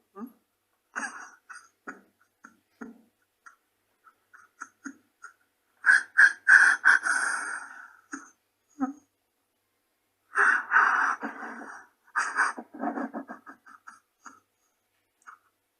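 A man crying: short sniffs and catches of breath, then two loud bouts of sobbing, about six and ten seconds in, each broken into quick stuttering sobs.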